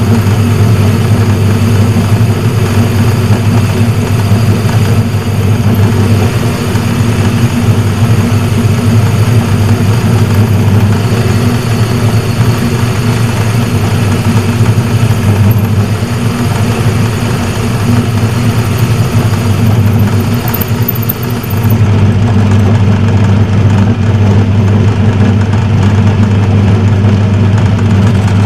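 Turnell & Odell metal lathe running steadily, its electric motor and drive giving a loud, even hum, with a brief dip in level about three quarters of the way through.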